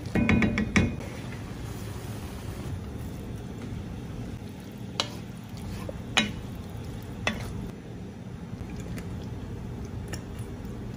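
Thick curry sauce glugging out of a glass jar into a pan at the start. Then a wooden spoon stirs chopped chicken through the sauce, knocking sharply against the pan three times over a low, steady sizzle.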